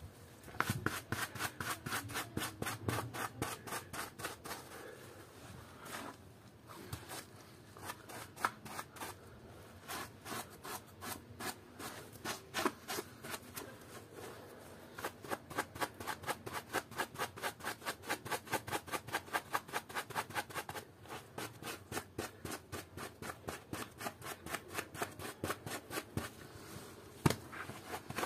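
Rhythmic scrubbing of a foam-soaked plush toy by hand and with a small brush, about three to four wet strokes a second, stopping briefly a few times. A single sharp click near the end.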